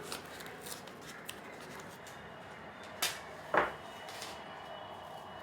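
Masking tape and paper being handled: small crinkles and clicks, then two short rasps of tape pulled off the roll and torn about three seconds in, the second louder.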